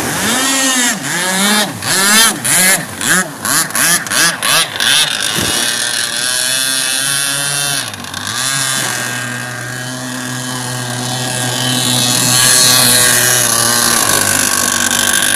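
A 26cc two-stroke petrol engine in a Blackjack 55 RC boat, revved up and down in a quick run of throttle blips that speeds up over the first few seconds. It then runs steadily at high revs with a brief dip about eight seconds in, as the boat planes across the water.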